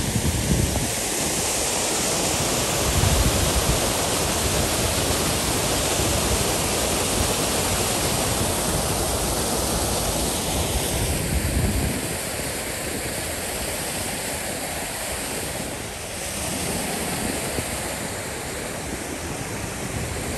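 River water rushing and pouring through an opening in an old concrete dam wall, a steady wash of noise. Wind buffets the microphone with low rumbles for about the first half, and then the rushing goes on a little quieter.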